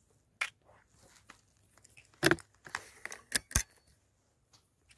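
Handling noise: a series of clicks, knocks and rustles. The loudest cluster comes about two seconds in, and two sharp clicks follow close together just after the middle.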